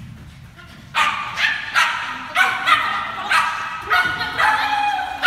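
A dog barking over and over, starting about a second in, at about three barks a second.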